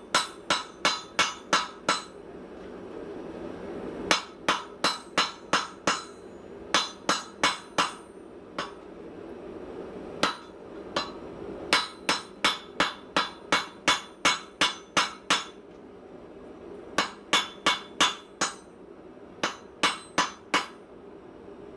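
Hand hammer blows on hot steel on an anvil while forging a small hammer head, struck in runs of four to ten blows at about three a second, with pauses between runs. Each blow rings sharply, over a steady low rush of background noise.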